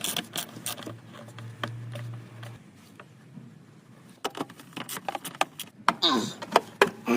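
Hand tools and metal parts clicking, knocking and rattling in short irregular bursts, with a quieter gap in the middle.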